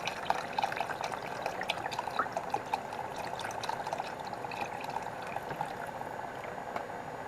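Vegetable stock being poured into a pot of simmering lentils for dal makhani: a steady pouring, bubbling sound with many small pops.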